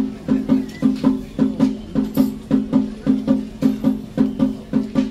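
Shamisen accompaniment: a steady, rhythmic run of plucked notes, about three a second, each with a sharp snap that dies away quickly.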